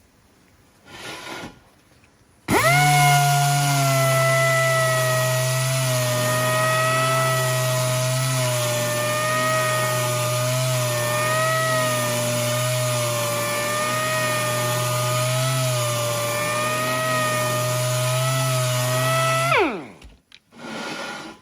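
Electric power tool spinning a sanding disc against an alloy wheel's rim edge, grinding out curb damage and corrosion. It gives a short blip, then starts up and runs steadily for about seventeen seconds, its whine dipping slightly as it bites into the metal, before winding down near the end.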